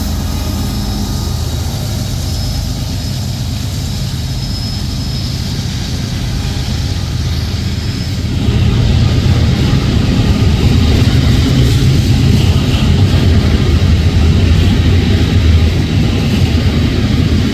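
CSX coal train rolling past with a steady heavy rumble, a faint high wheel squeal dying away in the first several seconds. The rumble gets louder about eight seconds in.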